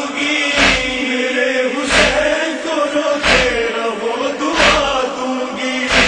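Mourners chanting in unison over rhythmic matam chest-beating: a sharp, deep slap of hands on chests about every 1.3 seconds.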